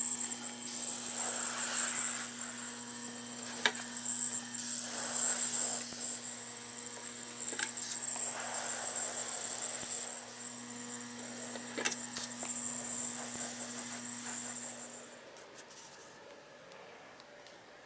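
Airbrush spraying paint with a loud steady hiss over the steady hum of its electric compressor, broken by a few sharp clicks; both stop about 15 seconds in.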